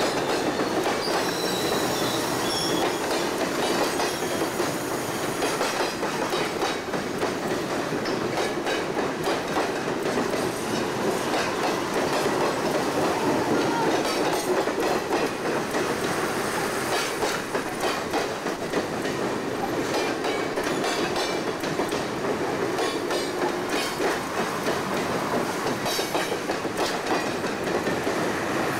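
Passenger cars of a train rolling steadily past over a railway bridge, steel wheels clicking over the rail joints, with a thin high-pitched wheel squeal about two seconds in.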